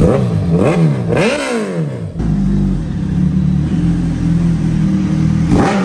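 Suzuki Hayabusa's inline-four through an aftermarket race slip-on exhaust, super loud: three quick throttle blips in the first two seconds, then a steady low-rev drone as the bike rolls along, and another rev near the end.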